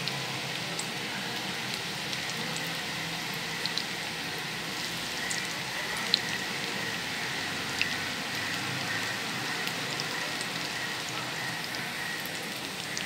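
Kothimbir bhajji (coriander and gram-flour fritters) deep-frying in hot oil: a steady sizzling hiss with a few sharp pops.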